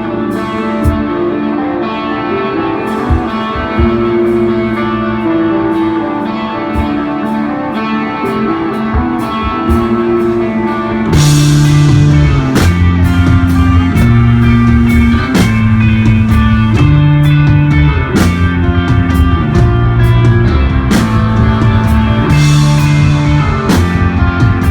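Live desert rock band playing instrumental: an electric guitar line over sparse drum hits. About 11 seconds in the music gets louder as the bass and full drum kit come in with a cymbal crash, and there is another crash near the end.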